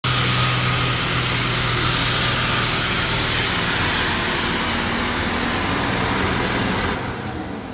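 Super-semi pulling truck's turbocharged diesel engine running flat out under load, a loud steady roar with a high whistle held over it. About seven seconds in, the engine noise and the whistle drop off sharply as the engine comes off full power.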